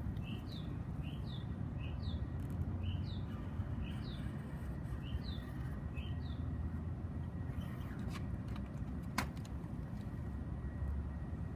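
A small bird calling, about seven quick two-note chirps spaced roughly a second apart over the first six seconds, over a steady low outdoor rumble. A single sharp click a little after nine seconds.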